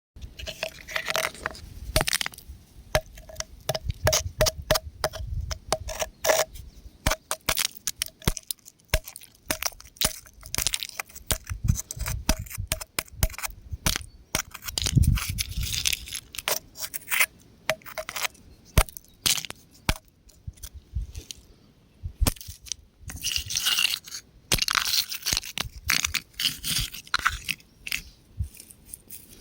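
Rock crumbling and breaking apart: a dense run of sharp cracks, crackles and crunches, with heavier crunching spells about halfway through and again near the end.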